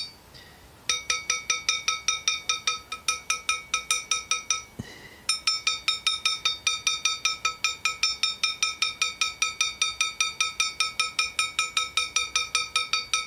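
Rapid metal taps on a VAZ 2109 camshaft, about five a second, each ringing with a bright metallic tone; the tapping pauses briefly at the start and again about five seconds in. It mimics the knock of a camshaft with axial (end) play.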